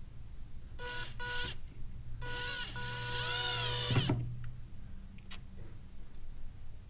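Power drill/driver with a T25 bit driving screws into a ski: two short trigger bursts about a second in, then a longer run of motor whine that cuts off sharply at about four seconds as the screw seats.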